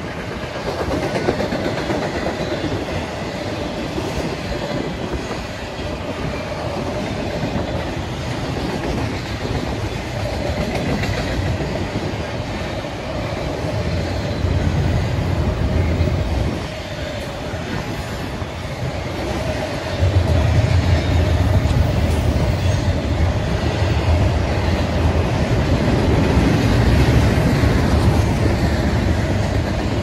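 Double-stack intermodal freight train's well cars rolling past, with steel wheels clicking over the rail joints over a steady rumble. The rumble grows louder and deeper about two-thirds of the way through.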